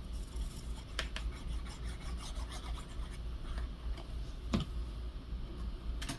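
Paper being handled and rubbed down on a craft page, soft scratchy rubbing with a few light clicks and taps, the loudest about four and a half seconds in.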